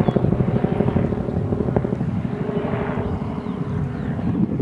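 An engine running steadily with a rapid, low, even throb.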